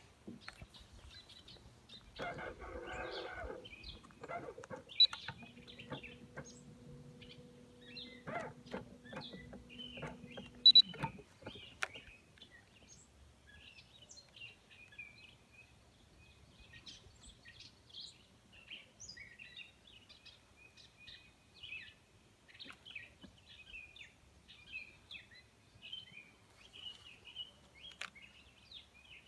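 Birds chirping and calling steadily in the background. Within the first dozen seconds there is a short rustle, then a steady low hum for about five seconds, with a few sharp clicks.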